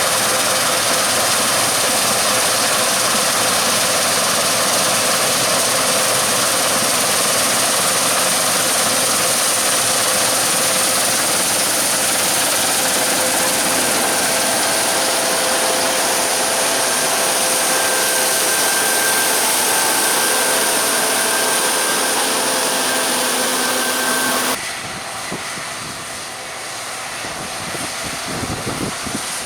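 Claas Lexion 750 combine harvester running steadily while cutting wheat, loud, with a strong even hiss over faint steady tones. About 25 seconds in the sound drops suddenly to a quieter, thinner machine noise.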